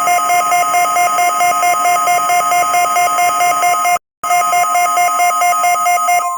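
NOAA Weather Radio warning alarm tone, a steady tone of about 1 kHz, sounding for the weekly test. A rapid electronic beeping alarm pulses over it, cutting out briefly about four seconds in and stopping just before the end.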